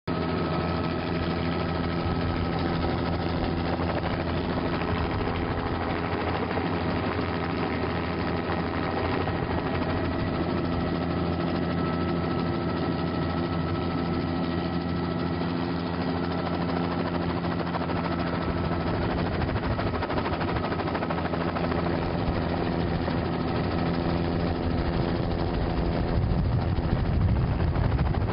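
Aircraft engine droning steadily, heard from on board, with a stack of steady tones over a constant rushing noise. The low end swells slightly near the end.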